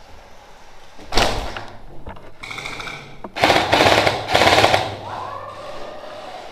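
Electric gel blaster firing full-auto bursts with a rapid rattle: a short burst about a second in, then two longer, louder bursts around three and a half and four and a half seconds in.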